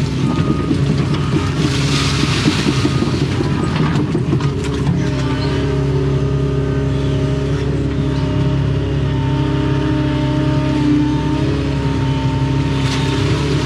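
Doosan excavator's diesel engine running steadily under hydraulic load while the bucket digs, with knocks and scraping in the first five seconds or so. A thin steady whine joins about nine seconds in.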